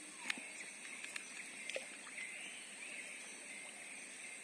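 Insects droning steadily in dense tropical forest, in two high-pitched layers, one of which swells briefly about two seconds in. A few faint clicks sound over the drone.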